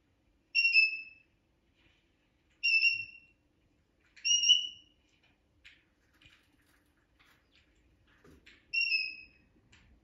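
A conure giving four short, loud whistled calls, each a clear note that falls slightly in pitch, with soft chirps and clicks between them.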